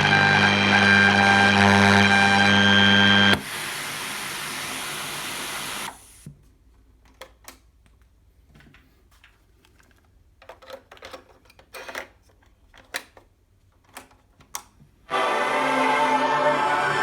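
National RX-C50PL boombox: music playing cuts off abruptly about three seconds in to an even hiss of static, which stops about six seconds in. Several seconds of scattered clicks and clunks of buttons and handling follow, and music starts playing again near the end.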